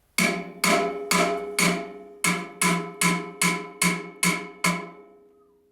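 Hammer striking the steel shaft and bearing of a snowthrower, eleven ringing metal blows at about two a second, the last one ringing out. The bearing is being driven off a shaft it is stuck tight on, and it is worn out.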